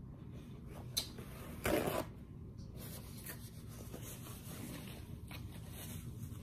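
A paper napkin rustling and rubbing as greasy hands are wiped, with a sharp click about a second in and a short, louder crinkle just before two seconds.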